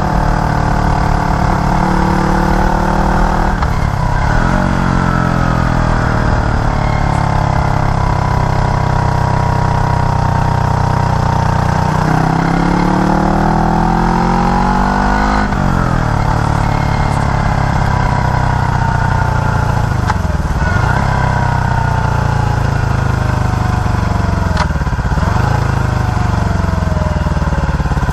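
Small air-cooled single-cylinder motorbike engine running under way, its pitch rising and falling with the throttle: a long climb a little before halfway, then a sudden drop, and two brief dips later on. Wind rushes steadily on the microphone.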